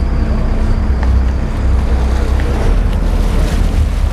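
Sport-fishing boat's engine running steadily, with wind buffeting the microphone and sea water washing along the hull.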